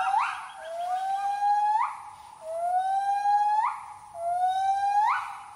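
Gibbon song: three long whooping calls in a row, each rising slowly and ending in a sharp upward sweep.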